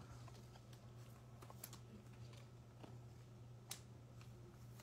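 Near silence: a few faint clicks and taps of trading cards being handled and set down, over a low steady hum.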